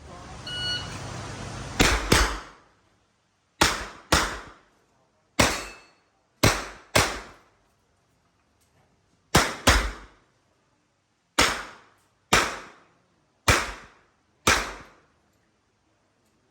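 A brief electronic beep, then a handgun fired in an IPSC course of fire: thirteen sharp shots, mostly in quick pairs a third to half a second apart, with pauses of one to two seconds between pairs. The beep is the shot timer's start signal.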